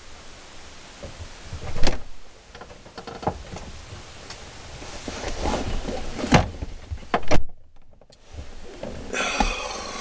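Scattered clicks, knocks and rustles of hands handling wiring and tools close to the microphone, with the sound dropping out briefly about seven and a half seconds in.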